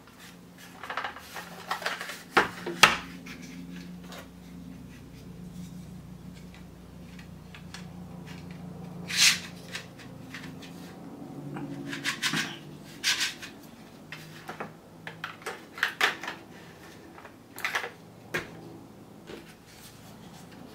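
Hard plastic parts of a toy electric gel ball blaster being handled and fitted together: scattered clicks, knocks and rattles, a few sharper ones standing out.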